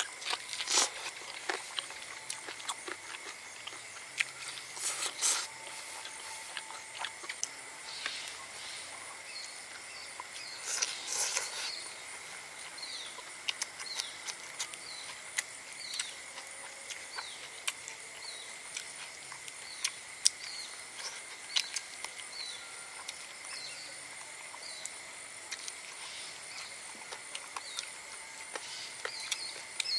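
Close-up eating sounds from a man eating roast chicken by hand: wet chewing and lip-smacking clicks, with a few louder tearing bursts. Under it runs a steady high drone of insects, with short chirps repeating about once a second from a little way in.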